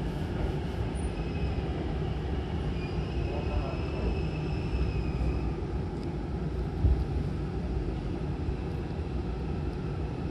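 Hankyu Kobe Line train car running, heard from inside the cabin as a steady low rumble. A faint high whine comes in from about one to five seconds in, and there is a single knock about seven seconds in.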